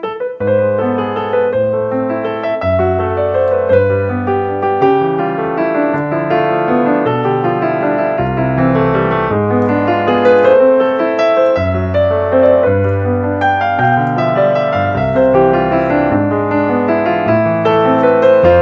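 Background piano music with a steady run of chords over changing bass notes, starting abruptly.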